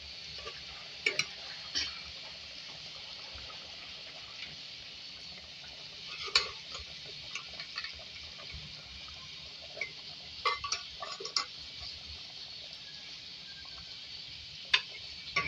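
Fish curry simmering in a metal pot, a steady hiss of gently bubbling gravy, with a few short taps and clinks of a metal spatula against the pot.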